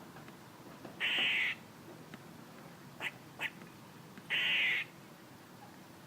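A squirrel calling: two harsh, buzzy calls of about half a second each, one about a second in and one past the middle, with two short chirps between them.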